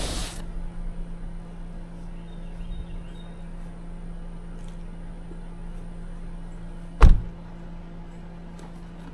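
A car door shut with a single sharp, loud thump about seven seconds in, after a lesser thump at the very start, over a steady low hum.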